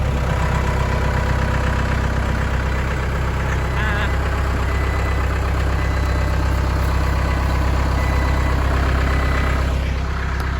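Skid steer engine running steadily at idle, back running after the machine had stalled with its auxiliary hydraulics locked on.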